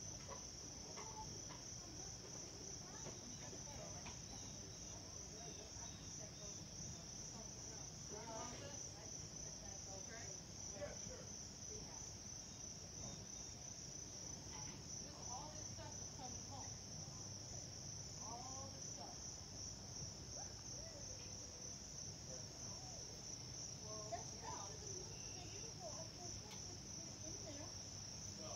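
Steady high-pitched insect chorus with a fast pulsing beat, over a low steady rumble and scattered faint chirps.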